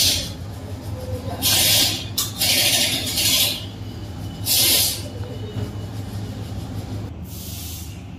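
Hissing spray in four short bursts, the longest about a second, directed at a motorcycle's front brake caliper during cleaning, over a steady low hum.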